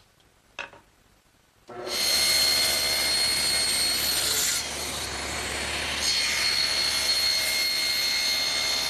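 Table saw with an ordinary saw blade cutting a mortise into the end of a wooden door stile. It starts suddenly about two seconds in and then runs loud and steady, with a high steady whine over the noise of the cut.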